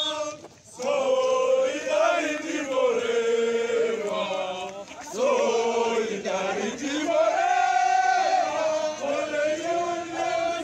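A marching crowd of demonstrators chanting together in song, many voices holding long notes that rise and fall. There is a short break just after it begins.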